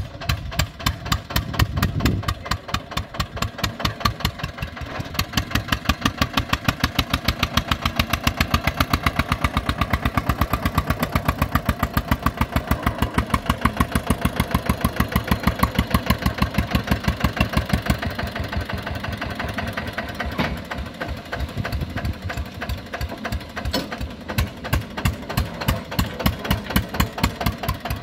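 Diesel engine of a 35-horsepower tractor working a homemade front loader, running with a steady, rapid beat. It is loudest through the middle stretch and eases off somewhat after about 18 seconds.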